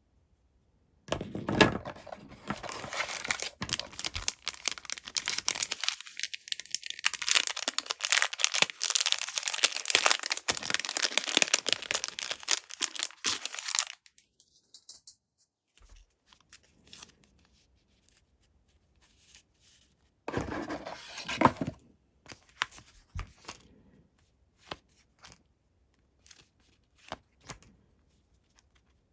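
Blind-box packaging being torn open and crinkled for about thirteen seconds, then scattered light clicks and a second short burst of crinkling.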